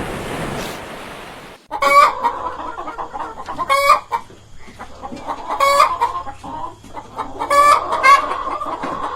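A steady rushing noise, then from about two seconds in a chicken calling with short, loud clucks about every two seconds.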